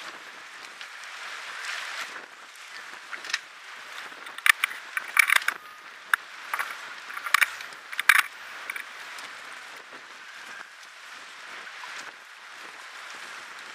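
Steady wash of waves and wind on open water. Over about four seconds in the middle come a run of sharp, loud clicks and knocks.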